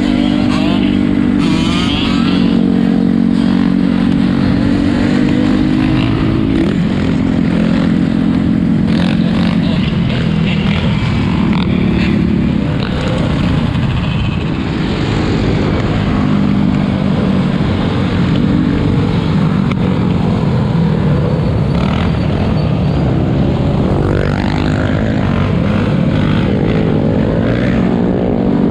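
Several four-wheeler (ATV) engines running and revving together, their pitches rising and falling and overlapping, loud throughout.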